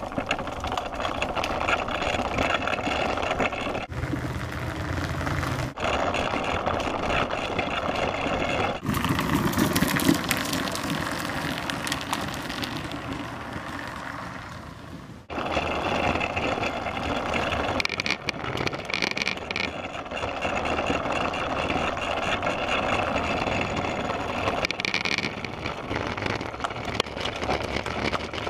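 Big wheel trike rolling over brick pavers: a steady rolling rumble of its wheels and frame, changing abruptly several times along the way.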